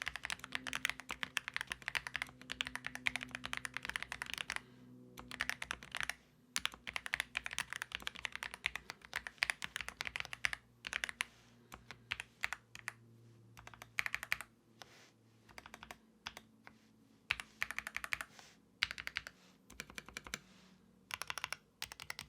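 Typing on a Royal Kludge R65 mechanical keyboard fitted with Akko V3 Crystal Pro linear switches and XVX PBT keycaps: fast runs of keystrokes broken by short pauses.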